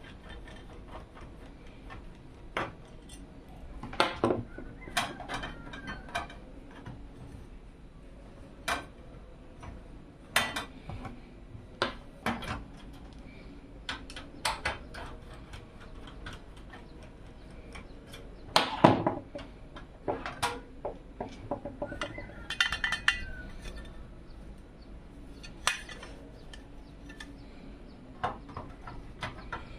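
Irregular clicks, taps and light metallic clinks of small hardware being handled, with a louder knock about two-thirds of the way through and a short ringing clink soon after.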